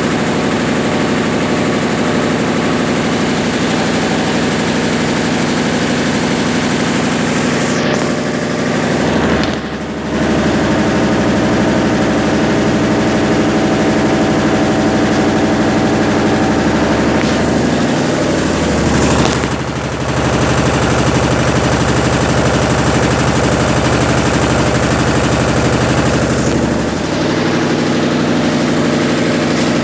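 Consul Facilite 10 kg washing machine running through its rinse and spin cycle, a loud steady machine hum. The hum briefly dips and shifts pitch about a third of the way in, and again about two thirds of the way in.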